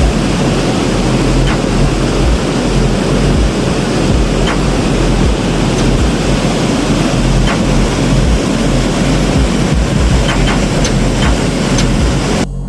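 Waterfall roaring: a loud, steady rush of falling water that cuts off suddenly just before the end.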